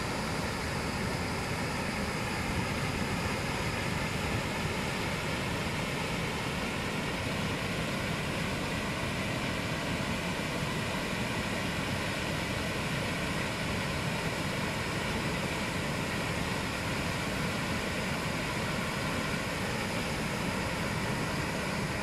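Large waterfall in full flow, heavy white water pouring over a wide rock ledge: a steady, continuous rush of water noise.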